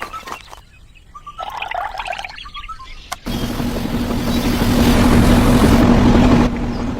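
A small motor starts abruptly about three seconds in and runs steadily, a hum under a loud hiss. Before it come faint scattered squeaks and clicks.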